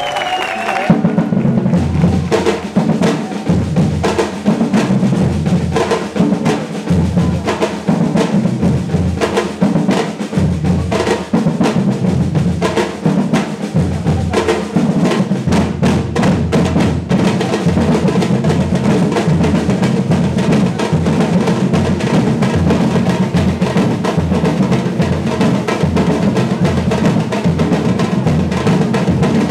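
Brazilian batucada percussion band playing together, deep bass drums under snare drums in a steady driving rhythm, coming in at full strength about a second in.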